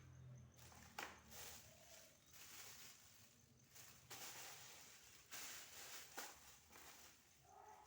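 Faint handling sounds: a few light knocks and short scraping or wiping noises, as of things being moved and surfaces rubbed while a refrigerator is cleaned out.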